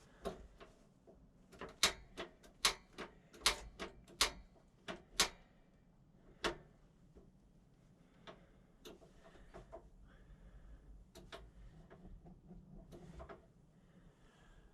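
A run of sharp, irregular clicks and taps, dense for the first six seconds, then fewer and fainter.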